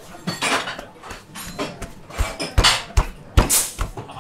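Kitchen work clatter: metal utensils and dishes clinking and scraping, then a run of five sharp knocks with a deep thud, about two a second, in the second half.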